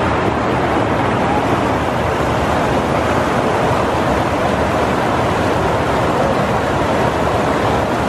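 Steady rush of river water pouring over a low weir and churning into a pool.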